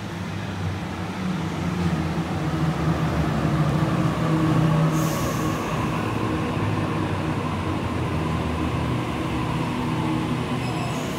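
Sydney Trains Waratah (A-set) double-deck electric train arriving and slowing at the platform. It grows louder as it comes in, over a steady low hum, and its traction motors give a whine that falls in pitch as it decelerates. A brief high hiss comes about five seconds in.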